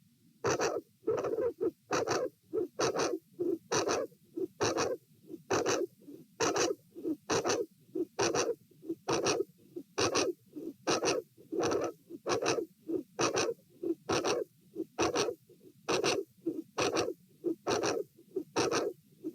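Heart sounds heard through a stethoscope over the aortic area: paired lub-dub beats about once a second, the gaps uneven, an irregular rhythm with premature atrial and ventricular beats (PACs and PVCs). The heart has a dilated aortic root.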